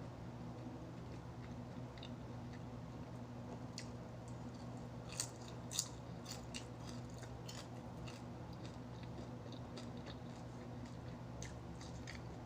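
A person chewing and biting into crispy fried chicken, with a cluster of crunchy bites in the middle, the loudest two close together, over a steady low hum.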